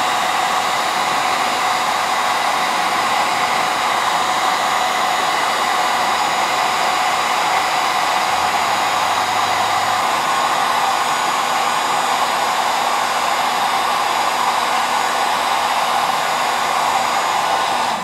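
Handheld electric heat gun running steadily at full blow, heating adhesive-lined heat-shrink tubing over a battery cable splice: an even rush of air with a faint motor whine.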